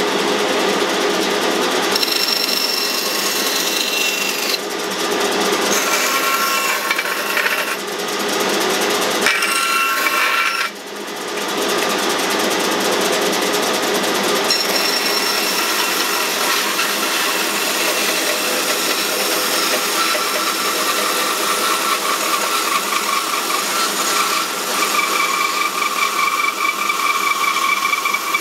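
1948 Delta band saw, driven by a 1 HP Dayton motor, running and cutting through pieces of wood in several short cuts, with the shop dust collector's suction running on the saw. A steady whine sits over the blade's rasp, and the sound shifts abruptly several times from one cut to the next.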